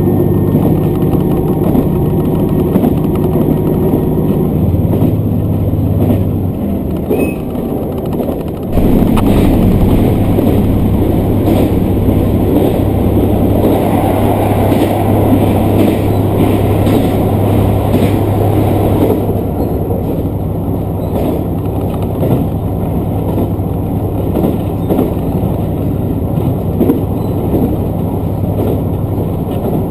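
Diesel railcar running on the line, heard from inside the train: a steady engine drone under rolling wheel-and-rail noise. The engine note changes about four to five seconds in. A louder rush of running noise sets in suddenly near nine seconds and eases off around nineteen seconds.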